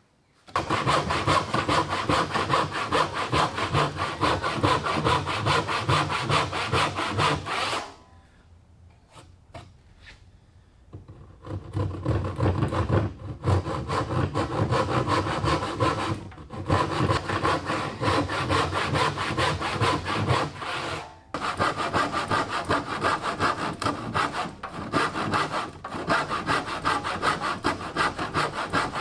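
Saw cutting through wood in long runs of quick rasping strokes, stopping for a few seconds about eight seconds in and pausing briefly twice more before carrying on.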